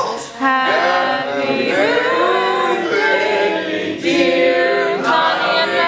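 A group of people singing together unaccompanied, holding long notes with a short break about four seconds in.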